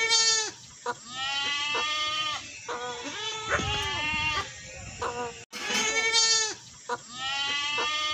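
Goat bleating over and over, a string of long, wavering bleats. About five and a half seconds in, the same run of bleats cuts off abruptly and starts again.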